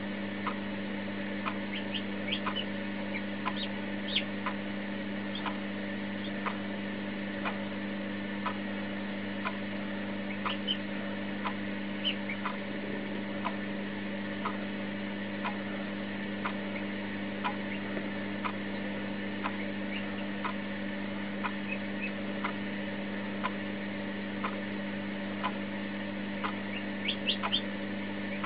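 Newly hatching Marans chick peeping in short, high cheeps, a few around the start and a quick run near the end. Under it runs a steady low hum with a regular tick a little faster than once a second.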